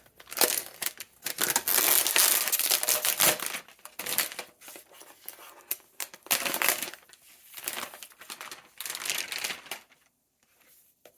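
Plastic protective wrap being peeled off a new laptop and crinkled, in irregular bursts of crackling that fall quiet about ten seconds in.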